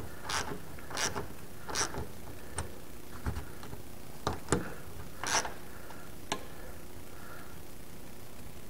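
Socket ratchet clicking as a nut is tightened on the wing strut bracket: a few evenly spaced clicks in the first two seconds, then scattered single clicks that stop about six seconds in.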